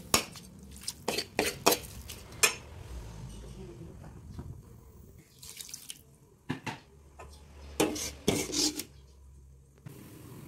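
Metal spatula clinking and scraping against a pan while stir-frying bean sprouts and mushrooms, in two spells of sharp clinks with a quieter stretch between. Near the end a glass lid is set on the pan.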